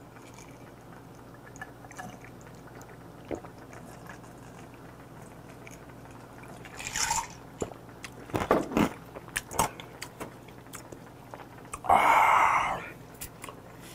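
A man drinking a vodka-and-grapefruit highball from a glass mug: a few short swallowing and gulping sounds, then, about twelve seconds in, a loud voiced exhale let out after the drink goes down.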